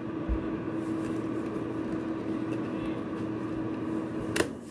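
ProBreeze fan heater running on its fan-only low setting: a steady whir with a steady hum. Near the end a sharp click, as the control dial is turned, and the hum stops.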